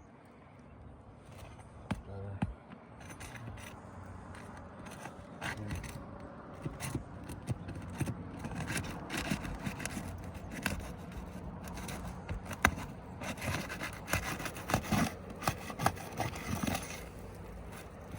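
A shingle snake tool scraping and rasping under dry, brittle asphalt shingles to break the roofing nails loose, with many sharp clicks and snaps. The scraping gets busier from about four seconds in.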